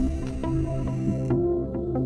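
Background music: soft, calm instrumental music with held notes and light plucked notes.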